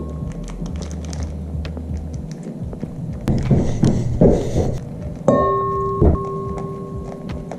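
A block of Monterey Jack cheese scraped down a flat metal grater in repeated short strokes into a steel bowl. Background music plays over it: a low bass pattern at first, then a held keyboard note from about five seconds in.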